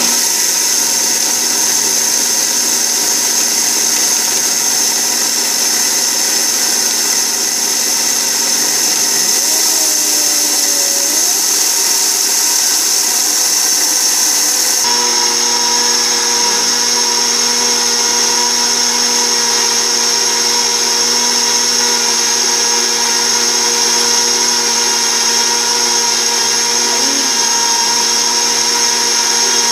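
Blendtec blender switching on and running steadily, grinding dry brown rice into flour: a loud motor whine. Its tone changes abruptly about halfway through.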